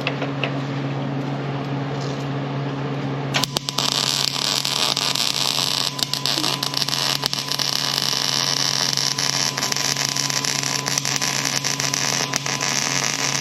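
Wire-feed (MIG) welder striking an arc about three seconds in and running a weld bead for about ten seconds, crackling steadily, over a steady low hum. The bead fills in a weld repair on steel.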